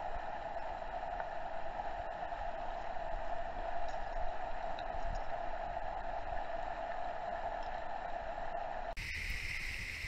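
Mountain stream rushing over rocks, a steady even rush of water. About nine seconds in the sound cuts abruptly to a brighter, hissier rush of water.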